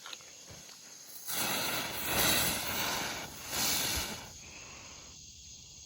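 Jumping jack ground-spinner firework hissing for about three seconds, swelling twice before it dies out: a weak, short burn.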